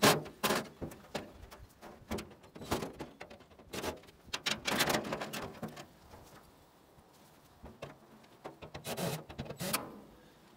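Irregular knocks, clanks and rattles of a gas dryer's sheet-metal cabinet and parts being handled and pulled apart by hand, with a quieter stretch between about six and eight seconds in.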